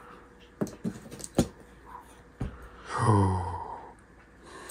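A few light taps and knocks from a knife and hands handling a cardboard shipping box, then a short wordless hum or sigh from a man with a falling pitch about three seconds in.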